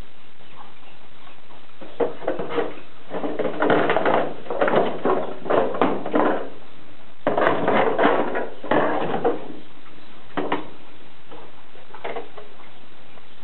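Missouri Fox Trotter horse crunching pieces of carrot, apple and celery: quick, irregular crunches starting about two seconds in, with a brief pause midway and a few last crunches near the end.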